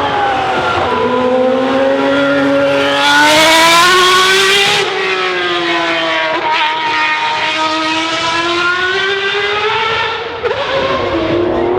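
Race car engines revving as cars drive past, the pitch dipping and climbing again several times. It is loudest about three to five seconds in.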